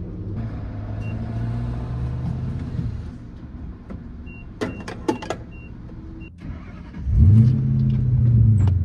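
Pickup truck engine starting about seven seconds in, the pitch rising briefly as it catches and then running at a steady idle. Before that come a low steady hum and a few clicks with short high electronic beeps, like a fuel pump's keypad.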